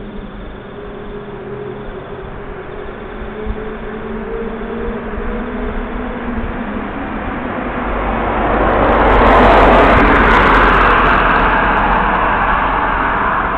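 Distant motorcycle engine echoing, its note slowly shifting as it rides, then a vehicle passes close by on the road about nine seconds in, its engine and tyre rush swelling loudly and easing off.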